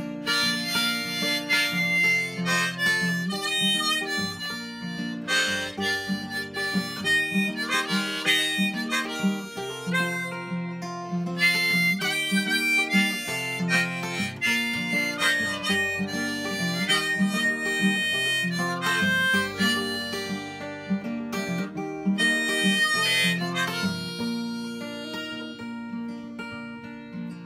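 Harmonica played in a neck holder over a strummed acoustic guitar, an instrumental melody with steady strumming. It gets quieter near the end.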